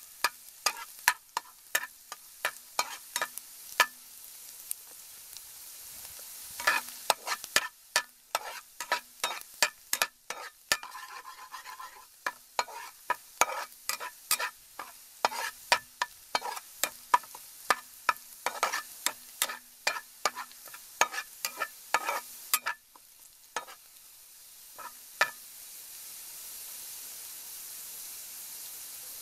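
Minced garlic frying in oil in a wok with a steady sizzle, while a metal spatula stirs it, clicking and scraping against the pan many times in quick, uneven strokes. The spatula clicks stop near the end, leaving only the sizzle.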